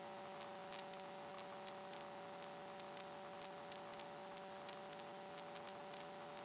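Faint steady electrical hum with a fixed high tone, under light hiss and scattered static ticks, on an aircraft radio/intercom audio line while no one is transmitting.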